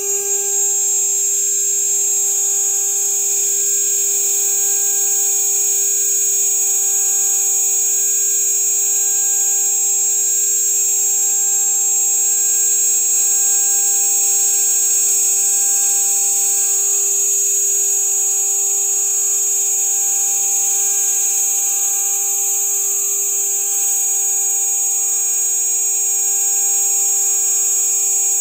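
Router spindle on a CNC machine, running at about 12,000 RPM while a 3 mm carbide endmill mills half-inch polycarbonate: a steady, high-pitched whine with a steady lower tone under it.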